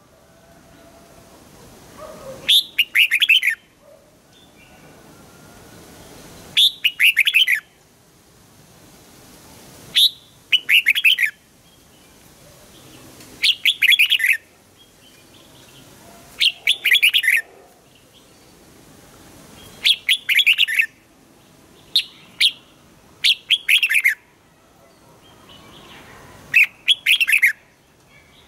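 Red-whiskered bulbul singing: short, loud, high-pitched phrases of several quick notes, each about a second long, repeated about every three to four seconds. This is the double-note 'wild' bulbul song used to train caged birds.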